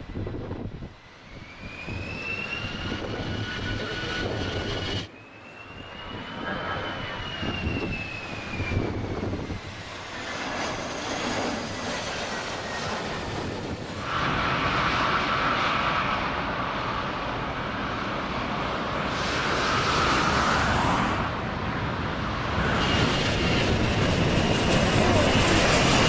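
Airbus A320-family airliner's turbofan engines passing close during landings: a high whine that rises and then falls in pitch over the steady jet noise, then a louder, steady engine roar. The sound breaks off abruptly a few times where one shot gives way to another.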